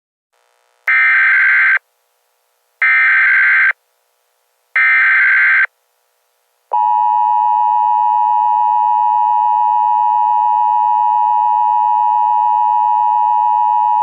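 Emergency Alert System broadcast tones: three short warbling bursts of SAME header data, each just under a second and evenly spaced, then about seven seconds in the steady two-tone EAS attention signal begins.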